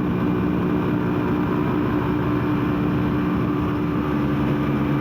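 Single-cylinder 125cc four-stroke engine of a Lexmoto Adrenaline supermoto running at a steady cruise under the rider, with wind and road noise. A lower engine note joins about four seconds in.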